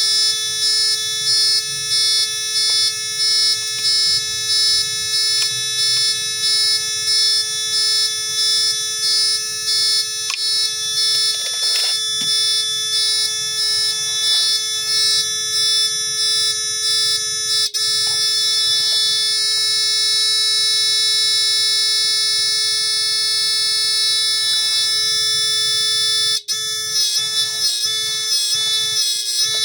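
Electronic buzzer from a three-mode sound-effect circuit sounding a steady, buzzy tone. It beeps in repeated pulses just over once a second, switches to one continuous tone about 18 seconds in, and changes to a fast warbling tone near the end.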